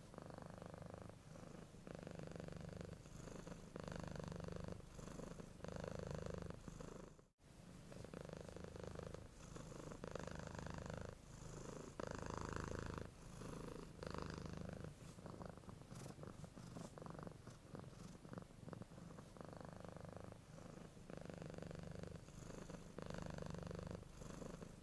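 Domestic cat purring, the purr swelling and easing in a steady rhythm of about one breath a second. It breaks off for an instant about seven seconds in.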